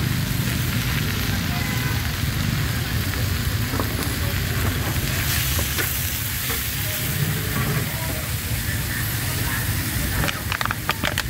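Food frying in hot oil in a pan, a steady sizzle, with a few quick sharp clicks near the end.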